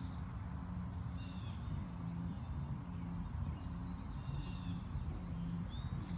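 Short bird calls that fall in pitch, heard a few times over a steady low rumble.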